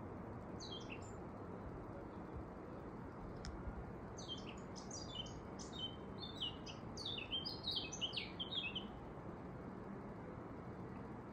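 A bird singing: a short chirping phrase about half a second in, then a longer run of quick high notes from about four to nine seconds in, over a steady low background hiss.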